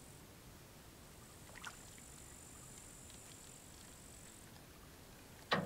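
Quiet open-water ambience at a boat: a steady high insect trill, faint water against the hull, a small tick about a second and a half in and a sharp knock near the end.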